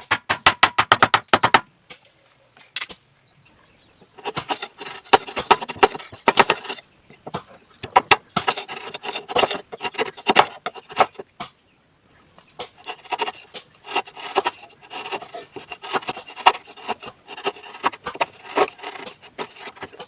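Chisel working wood: a quick run of rapid, even taps at the start, then several stretches of scraping and paring, each a few seconds long, with short pauses between.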